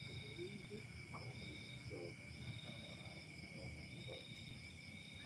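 Insects trilling: one high trill holds steady, while another higher one comes in pulses of about a second. Faint distant voices murmur underneath.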